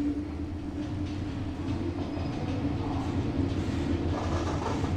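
ThyssenKrupp passenger lift car travelling down, with a steady low hum and rumble of the moving car and its drive.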